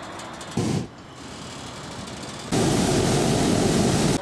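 Hot air balloon's propane burner firing: a short blast about half a second in, then a loud, steady rushing blast starting about two and a half seconds in and cutting off at the end.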